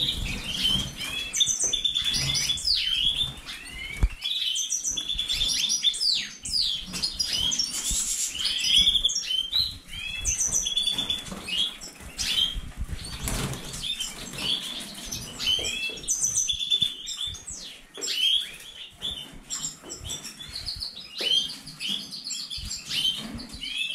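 Many caged canaries, European goldfinches and Magellanic siskins chirping and trilling together in a continuous stream of short, high notes. Wing flutters come through as birds fly about their cages.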